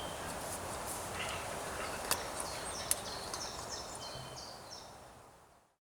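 Woodland ambience: a steady background hiss with small birds chirping in short, repeated, falling notes, and two sharp clicks about two and three seconds in. The sound fades out near the end.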